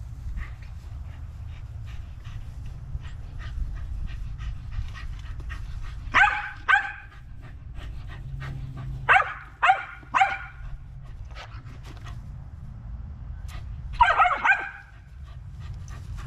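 A dog barking in short bursts: two barks about six seconds in, three more about nine seconds in, and another loud burst near the end.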